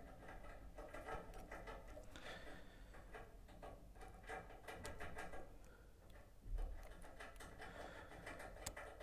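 Faint clicks and scrapes of a craft knife blade and fingers working at a fly-tying vise, trimming feather fibres, with a dull thump about six and a half seconds in.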